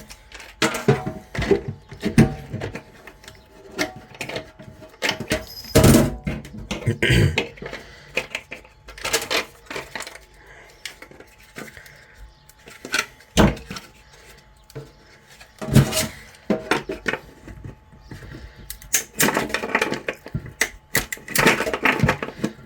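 3D-printed plastic support material being snapped and picked off printed finger armour pieces by hand: irregular sharp cracks and clicks, some louder snaps among lighter ticks.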